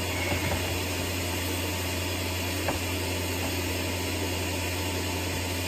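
Kärcher K3 Power Control electric pressure washer running with a steady hum, feeding water through the wash brush.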